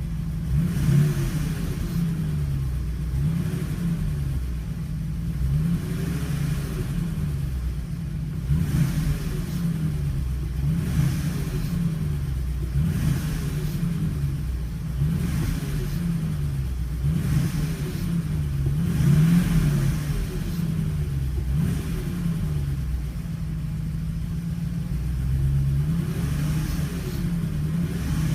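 1979 Mercedes-Benz 350SL's 3.5-litre V8 revved over and over from idle, about one blip every two seconds, each rise and fall in engine pitch carrying a strong intake suction hiss. The owner finds the suction excessive even with the air filter and seals in place.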